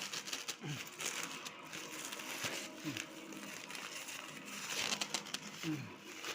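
Packaging crinkling and crackling as it is handled and opened, with many small sharp crackles.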